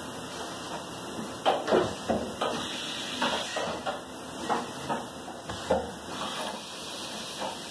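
Tool holder being taken out of and fitted back into the HSK-A63 spindle of a Mitsubishi DM-1600 vertical machining center by hand: a string of sharp metal clanks and knocks, about eight of them over roughly five seconds, over a steady hiss.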